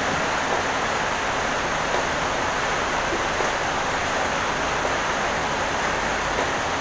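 Steady rushing noise that does not change.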